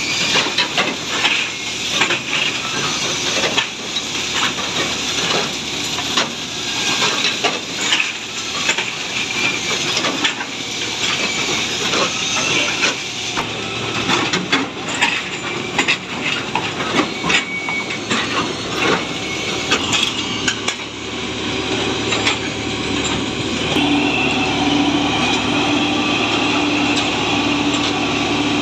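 Plasser SVM 1000 track-laying machine at work, with irregular metallic clanking and knocking over its running noise. A steady hum joins in about three-quarters of the way through.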